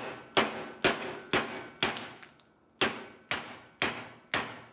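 A hammer striking a steel punch to drive the pivot pin out of a 1965 VW Beetle pedal cluster shaft held in a bench vise. The blows come about two a second, each with a short metallic ring, with a brief pause a little after two seconds in.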